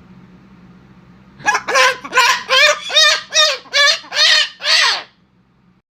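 A parrot calling in a quick run of about a dozen short, rising-and-falling squawks, starting about a second and a half in.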